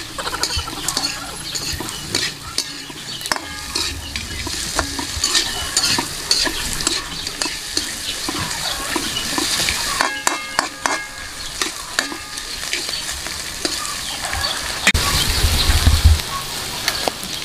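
Food frying and sizzling in a pan while it is stirred, a utensil repeatedly scraping and clicking against the pan. A few short ringing tones sound about ten seconds in.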